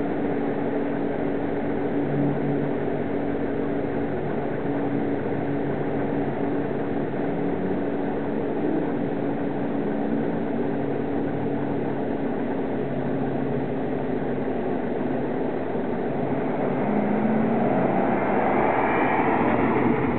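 Car engines running steadily as cars drive around the skid pad. Near the end a louder, rising engine note comes in as a BMW 5 Series sedan drives past close by.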